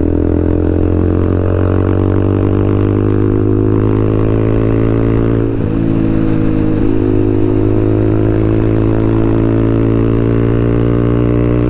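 TVS Apache RTR 200 4V single-cylinder engine through a full-system aftermarket exhaust, running loud at high rpm while riding at speed. The pitch creeps slowly upward and dips briefly about five and a half seconds in. The rider says the freshly fitted exhaust has loosened up after some riding and is making even more noise.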